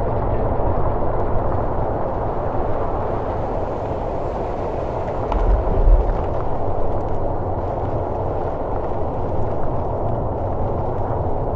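Steady low rumbling noise, with a heavier low thud about six seconds in.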